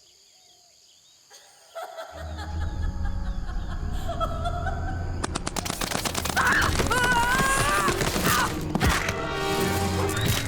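Dramatic cartoon background music swells in after a near-silent start, and about five seconds in it is joined by rapid volleys of paintball gunfire.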